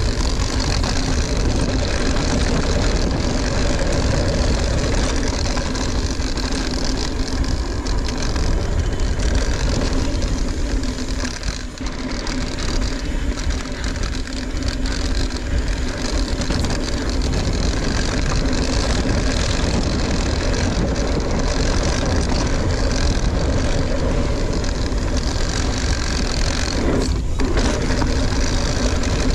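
Steady rush of wind and tyre noise from an Ibis Ripmo mountain bike ridden along a dirt trail, picked up by a camera on the rider or bike. It dips briefly about twelve seconds in.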